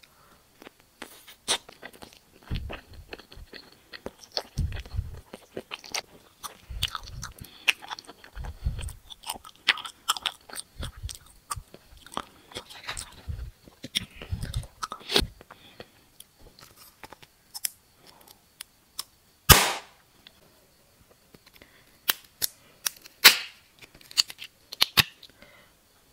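Close-miked chewing of a soft gummy candy, with many small wet clicks and low thuds through the first half. Later come a few sharp crackles, loudest about two-thirds through, as a plastic-wrapped gummy ball is opened.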